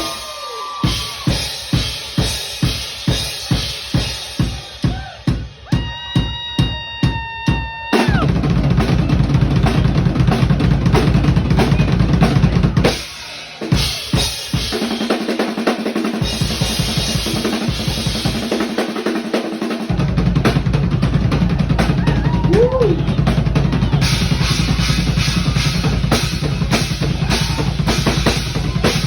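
Live drum solo on a Tama Superstar Hyperdrive kit with acrylic snare and Byzance cymbals. It opens with evenly spaced hits, about two a second, then breaks into fast, dense fills and rolls over bass drum and cymbals.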